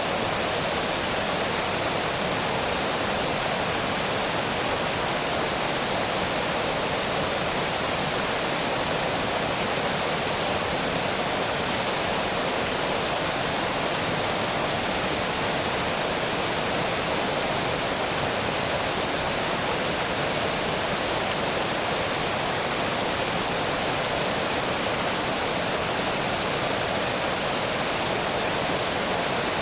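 Water pouring steadily over a small dam, an even, unbroken rush with no change in level.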